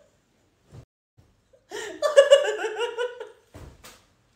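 A person laughing hard in a run of pitched bursts, starting about a second and a half in. A couple of short knocks follow near the end.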